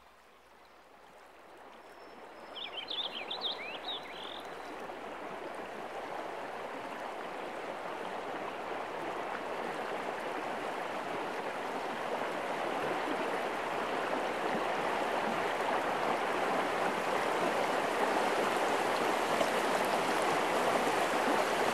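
Small waterfall splashing down a rock ledge onto boulders: a steady rushing that fades in from silence and grows gradually louder. A few short high chirps about three seconds in.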